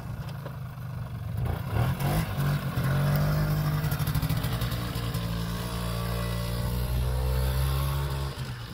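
Small quad ATV engine revving up as the machine pulls away, then running steadily under throttle, its note dropping away near the end as it moves off.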